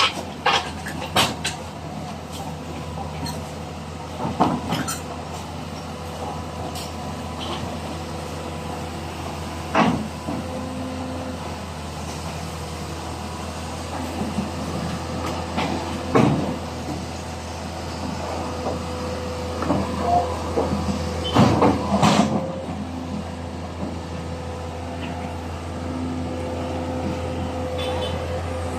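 Backhoe's diesel engine running steadily while the machine is loaded onto a truck, with scattered sharp metal clanks and knocks, a cluster of them about three-quarters of the way through.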